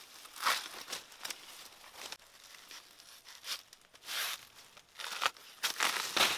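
A knife cutting into a banana plant's fleshy trunk and its layered sheaths being split and peeled apart, giving a series of short, crisp tearing and crunching sounds, the loudest near the end.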